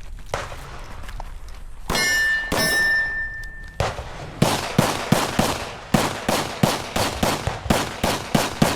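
An electronic shot timer's start beep lasts nearly two seconds. It is followed by a rapid string of 9mm pistol shots, about three a second.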